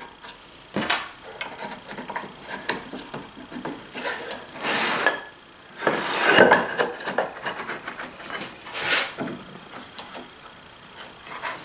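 Wooden boards knocking and scraping on a workbench top as Domino tenons are pushed into end-grain mortises and two short boards are pressed together end to end: a sharp knock about a second in, then several rough rubbing strokes, the loudest about six seconds in.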